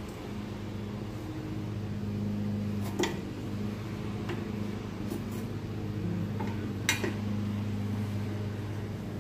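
A steady low hum with a few sharp metallic clicks and clinks from dishwasher door parts being handled, the loudest about seven seconds in and another about three seconds in.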